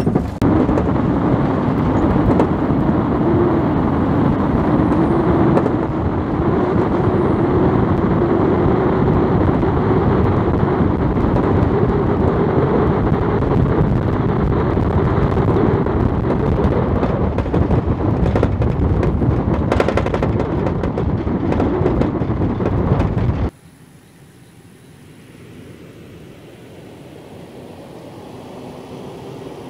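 Toyota 4Runner driving on a dirt forest road, heard from inside the cab: steady engine and tyre noise with a few knocks from the rough surface. About 23 seconds in it cuts to a much quieter outdoor background with a distant vehicle faintly growing louder.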